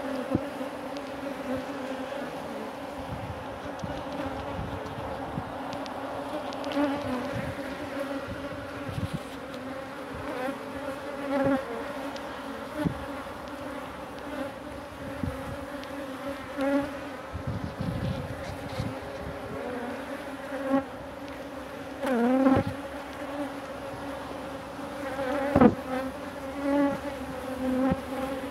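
Honey bees buzzing in a steady, pitched hum from an open hive full of bees. Now and then a single bee flies close past, its buzz louder and bending in pitch, most clearly twice in the last third.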